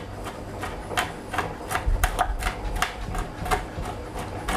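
Kitchen knife rough-chopping juniper berries on a chopping board: quick, even taps of the blade on the board, about four a second.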